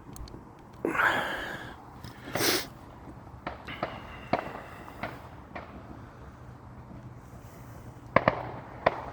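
Fireworks going off: a hissing, crackling burst about a second in and a bang soon after, scattered sharp cracks, then three sharp bangs close together near the end.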